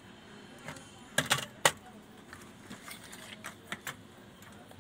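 Sharp clicks and taps of tweezers and a small circuit board being handled on a wooden workbench: a quick cluster of three about a second in, then a few fainter ticks near the middle and later.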